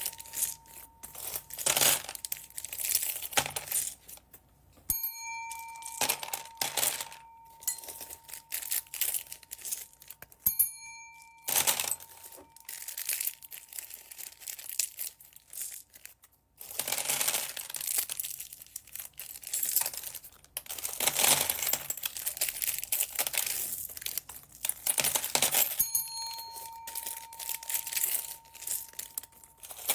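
Plastic bags crinkling and rustling in repeated bursts as bagged beads are handled and opened. A steady bell-like tone sounds several times, coming and going.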